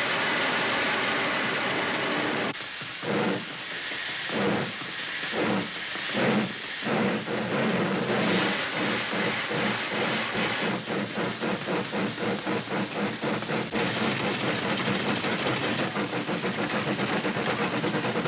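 Steam locomotive starting off: a steady hiss of steam, then slow chuffs from about two and a half seconds in that quicken into a fast, even chugging.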